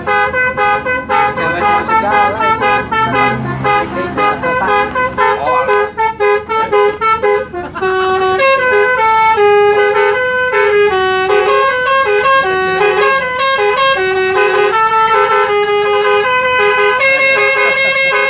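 Indonesian 'telolet' bus horn, a multi-tone musical air horn, playing a tune. Quick short notes come first, then longer notes that step up and down, and a long held note near the end.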